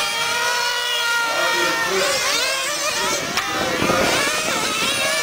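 Several 1/10-scale nitro on-road RC cars running together, their small two-stroke glow engines making overlapping high-pitched whines. The pitches hold steady for about two seconds, then rise and fall as the cars brake and accelerate.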